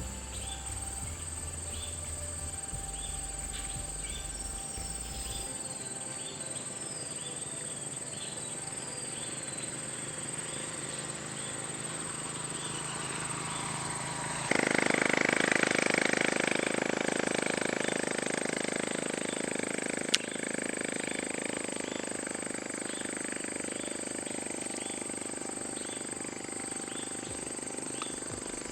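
Insects chirping in the open: a steady high-pitched insect drone with short chirps about once a second. About halfway through, a louder steady hiss sets in suddenly and slowly fades, with a single sharp click a few seconds later.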